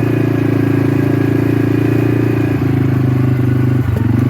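A vehicle engine running steadily at low speed, a constant low hum with a fine, even firing ripple.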